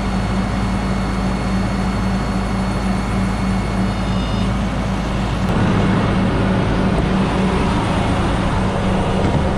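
Freightliner Cascadia semi truck's engine running steadily with its PTO engaged, driving the hydraulics of a Landoll tilt trailer. A faint high whine stops about halfway through, and soon after the running gets louder and rougher.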